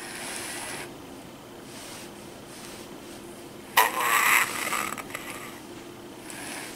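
A hand strokes the fur of a 2005 Furby, making a brief, louder scratchy rustle about four seconds in over a faint steady hum.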